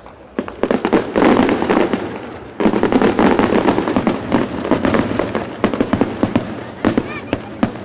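A string of firecrackers going off in fast crackling volleys: a run of about two seconds, a brief lull, then about four more seconds of rapid bangs, ending with a few single louder cracks.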